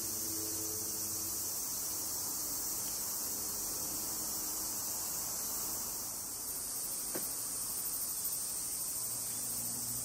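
Cicadas singing: a steady, high-pitched shrill drone, with a louder, pulsing song joining about six and a half seconds in.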